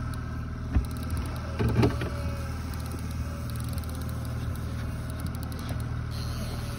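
Boat's outboard motor running steadily, a low even hum. A sharp knock sounds about a second in, and a short louder burst of sound near two seconds.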